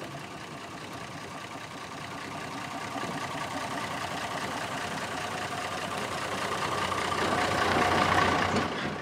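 A motor vehicle driving toward the listener and passing close by. Its engine and tyre noise grow steadily louder, peak about eight seconds in, then fall away sharply.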